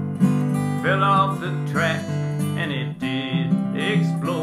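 Strummed acoustic guitar music, the accompaniment of a folk song, with a melody line sliding in pitch above the chords.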